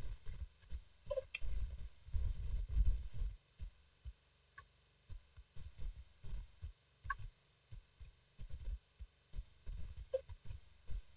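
Wind buffeting an outdoor camera microphone: irregular low rumbling thumps, with a few faint, short higher chirps scattered through, about a second in, near the middle and near the end.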